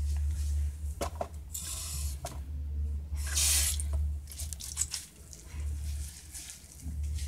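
Water splashing and squishing as a face is washed and rinsed with soapy hands at a sink, with two louder splashing swells, about 1.5 s and 3.5 s in, over a steady low hum.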